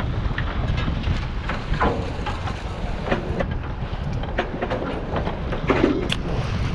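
Steady low rumble of a fishing boat's engines and wind on the microphone, with scattered clicks and knocks.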